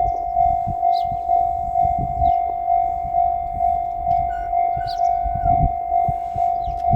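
Japanese railway level-crossing warning bell ringing its electronic 'kan-kan' tone, a steady repeating ding about twice a second.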